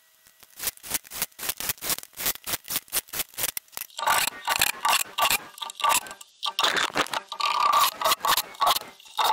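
Repeated scraping strokes, about four a second at first, then denser and louder from about four seconds in.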